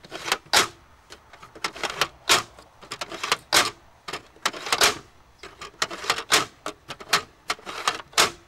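Disc launcher of a 1985 Mattel Blasterhawk toy fired over and over: a run of sharp plastic clicks and clacks as the lever is worked back and forth and the discs shoot out, the loudest about every second and a quarter.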